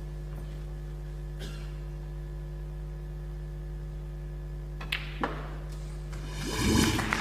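Two sharp clicks of snooker balls in quick succession about five seconds in, a shot being played, over a steady electrical hum. Near the end the audience's reaction swells up and turns into applause.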